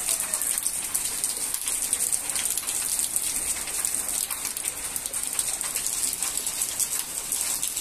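Heavy rain falling steadily: a dense, even hiss with many small drop ticks.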